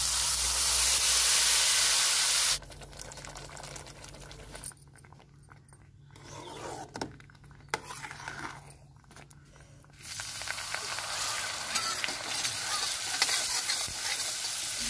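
Water poured into a hot kadhai of ghee-roasted semolina, hissing and bubbling loudly for about two and a half seconds. Then comes a quiet stretch with a few soft knocks of a ladle. From about ten seconds in, spices sizzle steadily in hot oil in the kadhai.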